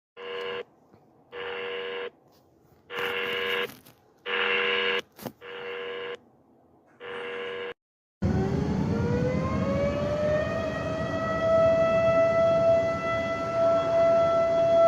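Emergency-alert alarm: six short beeps of several tones sounded together, about one a second, then after a short break a siren winds up in pitch and settles into a steady wail.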